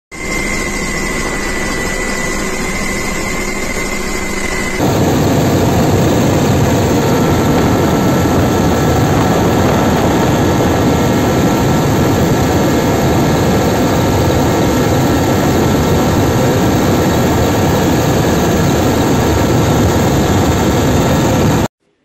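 Firefighting helicopter's turbine engine and rotor running, heard from on board as a steady loud rush with a thin high whine. About five seconds in the sound jumps louder and the whine fades; it cuts off suddenly just before the end.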